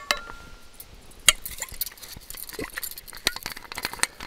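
Aluminium camp cookware and a metal bottle being handled: a short metallic ring at the start, a sharp clink about a second in, then scattered light taps and clicks of metal on metal.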